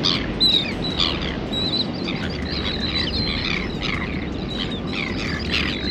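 A large flock of birds calling over open water: many short, overlapping high calls, mostly falling in pitch. A steady low rush runs underneath.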